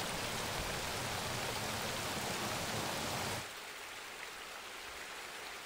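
Shallow stream water rushing and splashing over stones, a steady noise that drops suddenly to a much quieter hiss about three and a half seconds in.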